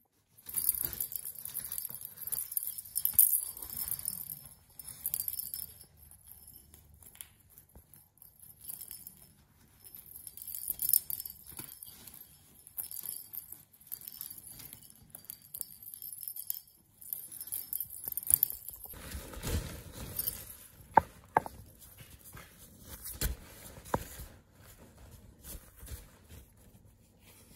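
Bell in a hanging cat-toy ball jingling in irregular bursts as a kitten bats at it. Over the last third the fabric of a cat play tunnel rustles, with a few sharp clicks.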